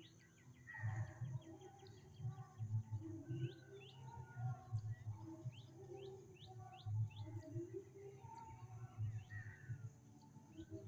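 Morning birdsong outdoors: many short, quick rising chirps and warbling calls from several birds overlapping. Irregular low bumps on the microphone are the loudest sounds.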